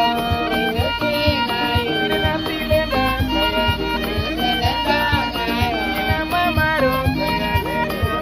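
Background music: a fiddle-like melody with sliding notes over a steady beat.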